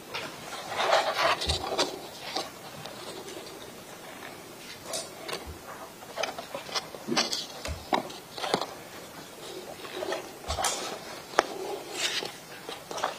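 Paper sheets and photo prints being handled and turned over: irregular rustling with scattered soft clicks and a few brief low thumps.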